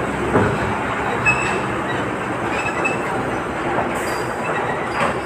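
Train passing: a steady rumble of wheels on rails, with a few faint high wheel squeals.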